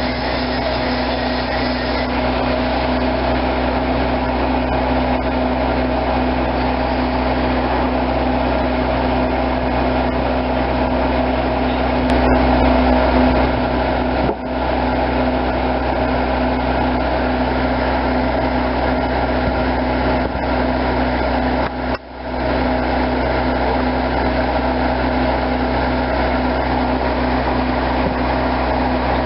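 An engine running steadily at constant speed, a loud drone with a steady low hum, dipping briefly twice.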